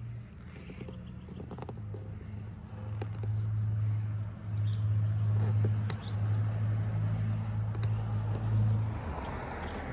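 A steady low hum, loudest from about two to nine seconds in, over faint scratches and clicks of a razor blade shaving cured windshield-repair resin flush with the glass.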